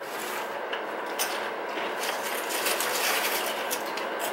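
Crunchy spicy chips and Cheetos being chewed, with hands picking through a heap of chips: a dense, steady crackle of many small crunches.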